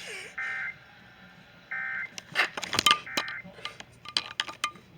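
Emergency Alert System end-of-message signal: three short bursts of SAME digital data tones, about a second apart, closing the alert. Sharp clicks and knocks start about halfway in.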